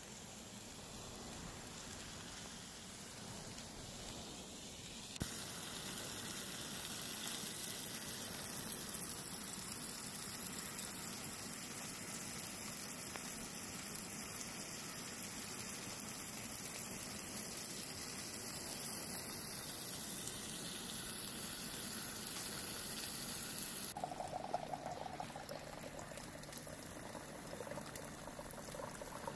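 A steak sizzling as it sears in a frying pan, starting abruptly about five seconds in and going on steadily. About 24 seconds in it gives way to water from a small desktop water pump pouring into a stainless steel mug, the pitch rising slightly as the mug fills.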